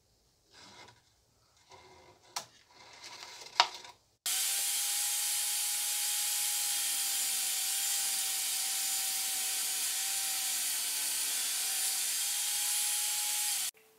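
Faint clicks and handling rustles, then about four seconds in a power tool starts abruptly. It runs steadily for nearly ten seconds as a loud hiss with one steady hum, then cuts off abruptly just before the end.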